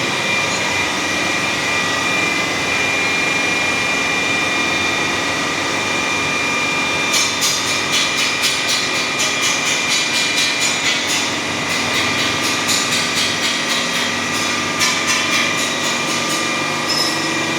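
CNC horizontal boring machine running with a steady mechanical hum and several whining tones. About seven seconds in, a rapid series of sharp clicks or rasps starts at about two to three a second and goes on for about ten seconds before stopping.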